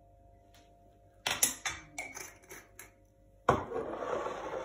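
Spoon and spice jars being handled at a cooking pot: a few light clinks of a metal spoon against the pot, then a sharp knock about three and a half seconds in, followed by a second of clattering as things are set down on the counter.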